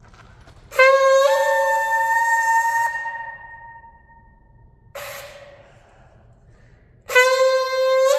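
Ram's horn shofar, about 15 inches, blown in three blasts. A long note breaks upward from its low tone to a higher one and then fades out, a short weaker blast follows at about five seconds, and another strong blast starts near the end and jumps up in pitch.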